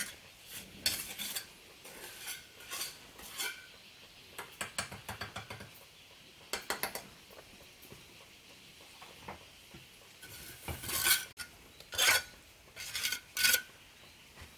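Irregular scrapes and clinks of hard objects against each other, in short clusters with pauses between.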